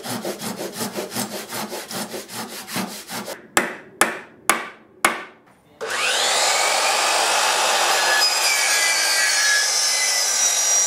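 A hand saw cutting a wooden board with quick, even strokes, followed by four sharp knocks. About six seconds in, a corded power saw starts up, rising in pitch, and then runs steadily, cutting wood.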